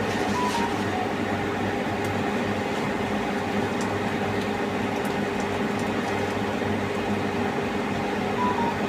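Steady mechanical hum: a low drone with a few constant tones, and faint clicks now and then.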